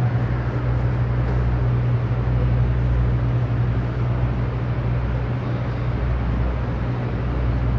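Steady low mechanical hum with an even hiss over it, the running noise of room ventilation and air-conditioning machinery.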